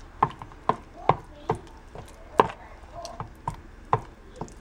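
A spoon tapping and scraping against the side of a bowl while stirring a thick melted chocolate and peanut butter mixture, about two to three taps a second, with one louder knock about halfway through.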